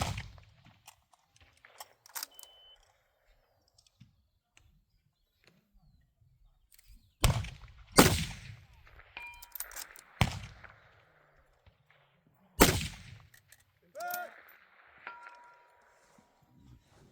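Muzzle-braked .308 precision rifle firing about five shots, the first at the start and the rest in the second half, several seconds apart with two close together, each with a sharp report and echo; thin metallic rings of steel targets being hit follow some shots.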